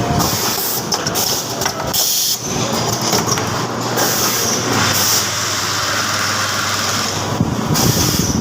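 Machinery running: a steady low hum under loud hissing noise that swells and drops every second or so.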